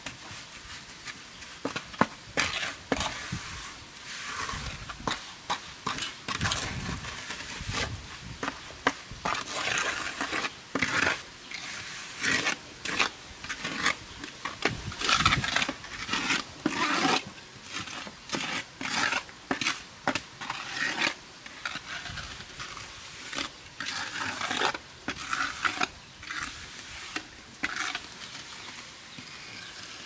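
Irregular scraping and knocking, short uneven strokes with sharp clicks among them, as of hands-on work with tools or materials.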